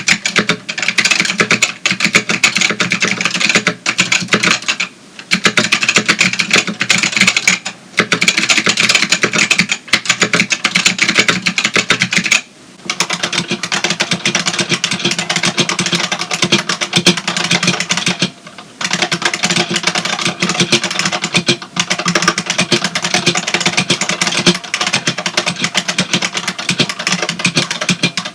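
Fast, continuous typing on a Matias Tactile Pro 4 with clicky Matias Click switches (a white Alps clone), a dense clatter of key clicks. About twelve seconds in the typing stops briefly, then resumes on an IBM Model M buckling-spring keyboard.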